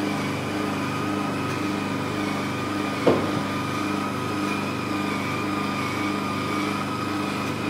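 Vacuum-roller body-contouring machine running: a steady mechanical hum with a fast, regular pulse. A single short, sharp sound about three seconds in.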